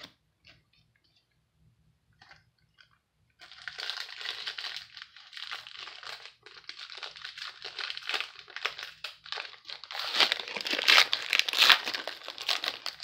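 Foil wrapper of a 2019 Leaf Draft football card pack crinkling and tearing as it is handled and ripped open. It starts about three seconds in and is loudest near the end.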